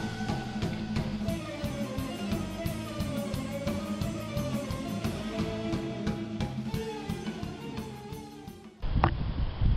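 Background rock music with guitar and a steady drum beat, fading out near the end. About a second before the end it cuts to wind buffeting the microphone.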